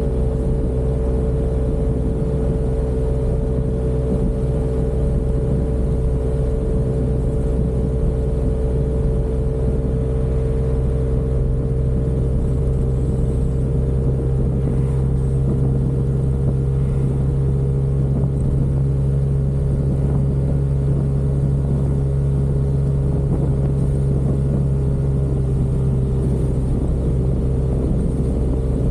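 Yamaha Aerox 155 scooter's single-cylinder four-stroke engine running at a steady cruising speed: an even drone over a low rumble, with no change in engine speed.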